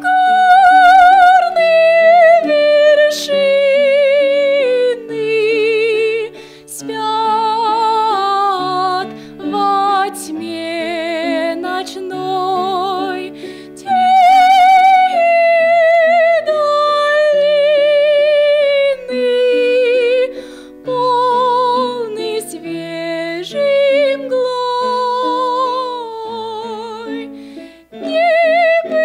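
A woman singing a Russian art song in a high voice with wide vibrato, in long held phrases, over sustained piano accompaniment.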